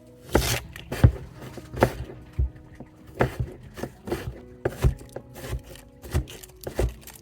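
Irregular knocks and scrapes of kitchen food preparation, about one to two a second, with faint steady background tones.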